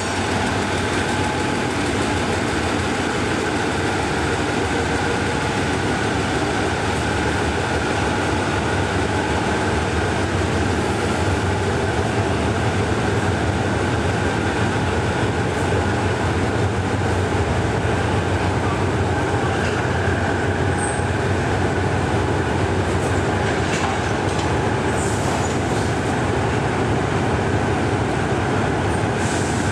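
GE UM12C diesel-electric locomotive's engine running steadily under low load while the locomotive moves slowly up to its coaches to couple on.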